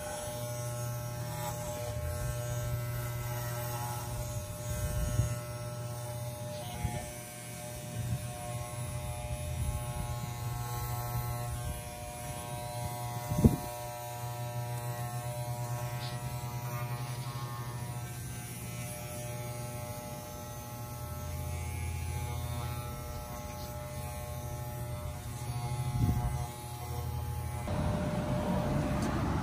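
Corded electric pet hair clippers running with a steady buzzing hum while cutting a dog's coat, with a few short knocks, one sharp one about halfway. The buzzing cuts off near the end and gives way to a rushing background noise.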